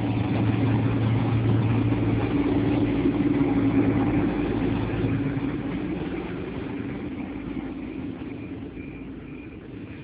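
Diesel multiple-unit train passing and pulling away, a steady low engine drone that is loud at first and fades over the second half as the train moves off.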